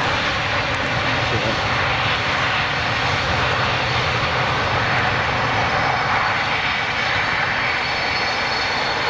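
Boeing 767's General Electric CF6 turbofan engines running steadily as the jet taxis: a loud, even jet noise with a faint high-pitched whine above it.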